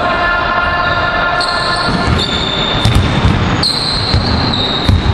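Basketballs bouncing on a wooden gym floor, with repeated thumps and high sneaker squeaks, in a large sports hall.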